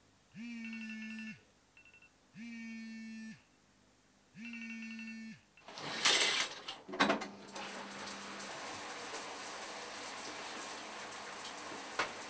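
A phone timer alarm sounds three times, each a one-second pitched tone about two seconds apart. About six seconds in, a shower curtain is pulled aside, and a shower then runs with a steady hiss of water.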